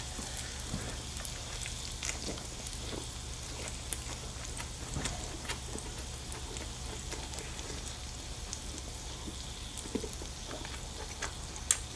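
Pork belly sizzling on a grill pan, a steady hiss with scattered small crackling pops, over a steady low hum.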